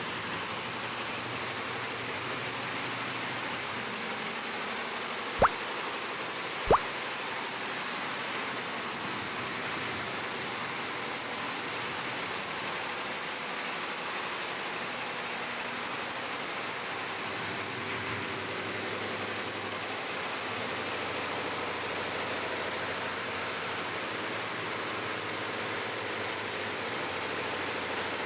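A machine running steadily with an even, unbroken noise, interrupted by two sharp clicks a little over a second apart, about five and a half seconds in.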